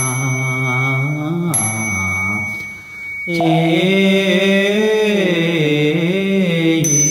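Buddhist fanbei chant: a slow, melismatic sung praise with long, wavering held notes. The phrase breaks off briefly about three seconds in, then the next phrase begins. A faint steady high tone sounds behind the voice.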